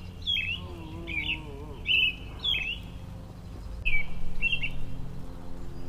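Small birds chirping: short, high calls with a quick downward flick, repeated in little groups. A low steady hum runs underneath and gets louder near the end.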